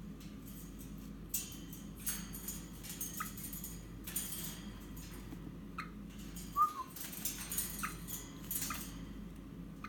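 Eastern rosella clambering on the wire bars of its cage: irregular scratchy rustles of claws on the metal, with a few short, faint chirps, the loudest about two-thirds of the way through.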